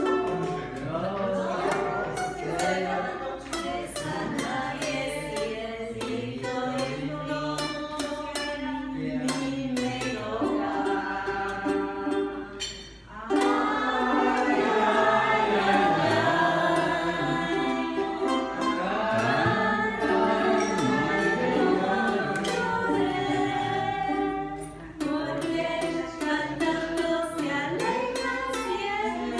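Ukulele strummed in a steady rhythm while several voices sing a song together. The music dips briefly about 13 seconds in, then the singing comes back fuller and louder.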